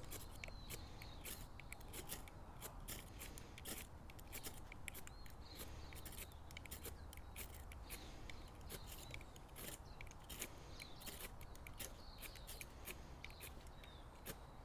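Two flint-and-steel fire starters (ferro rods) scraped with their strikers in quick, uneven strokes, a running patter of short scratchy rasps as sparks are thrown onto the tinder.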